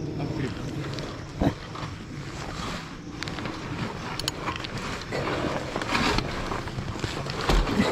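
Motorcycle being tilted and dragged by hand over loose dirt: uneven scraping and scuffing, with a sharp knock about a second and a half in and another near the end.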